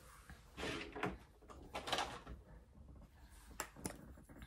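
Quiet handling of makeup products: two soft shuffles as items are picked up and moved, then two light clicks in quick succession near the end.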